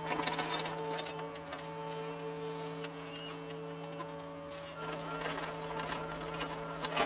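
John Deere 75 excavator running while digging: a steady buzzing drone from the engine and hydraulics, whose pitch shifts about five seconds in, with scattered clicks and knocks.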